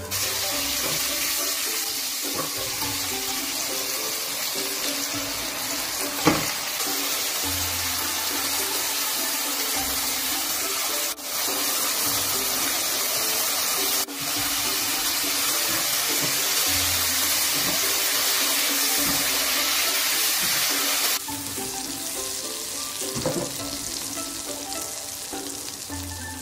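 Chopped garlic and pickled chilies, then luffa and tofu, sizzling in oil in a wok: a steady hiss over background music, with a single knock about six seconds in. The sizzle stops about 21 seconds in, leaving only the music.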